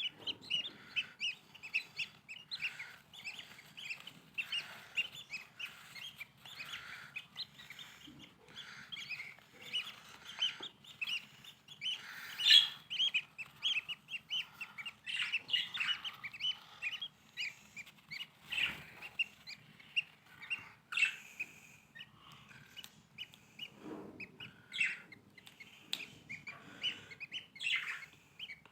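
Lovebirds chirping: many short, high calls in quick succession, with one louder call about twelve seconds in.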